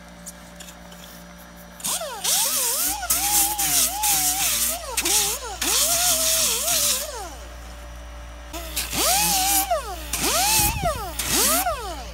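Harbor Freight air-powered angle grinder with a coarse 24-grit disc grinding Styrofoam. Its whine dips and rises in pitch over a loud hiss, in several runs with short breaks, starting about two seconds in.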